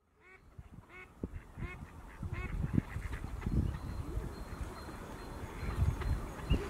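Waterfowl calling: a run of four calls about two-thirds of a second apart in the first couple of seconds, then low, irregular rumbling.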